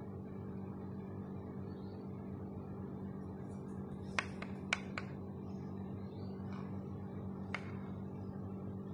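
A steady low electrical hum, with a few light sharp clicks about four to five seconds in and one more near the end, as of small hard objects being handled.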